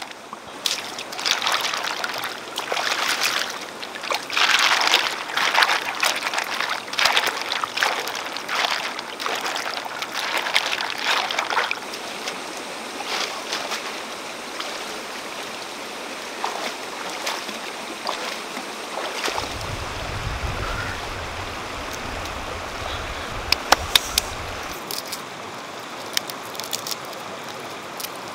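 Shallow rocky stream running steadily, with irregular sloshing and clattering for roughly the first twelve seconds as river mussels are handled in a bamboo basket at the water's edge. A few sharp clicks come a little before the end.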